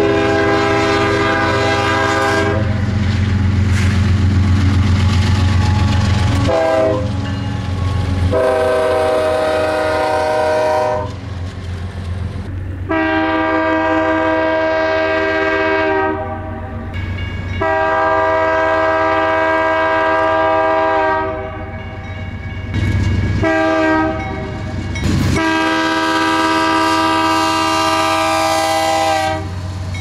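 Diesel freight locomotives' multi-chime air horns sounding a run of long blasts with a few short ones, over the low rumble of the locomotive engines and the rolling train. In the second half the blasts go long, long, short, long: the grade-crossing signal.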